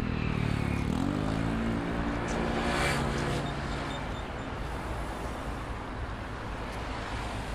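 A motor vehicle's engine passes by. Its pitch dips and then rises, and it is loudest about three seconds in.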